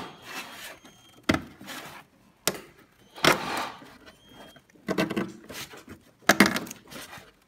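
Display circuit board being pressed and shifted onto its mounting studs in a plastic machine housing: several sharp knocks and clicks, with short scraping rubs in between.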